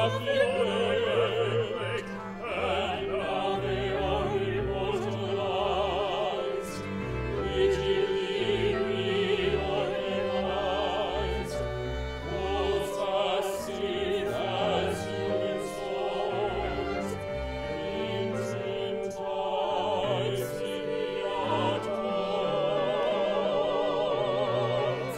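Live operatic music: a small orchestra playing a slow, sustained passage, with singing voices holding long notes with vibrato.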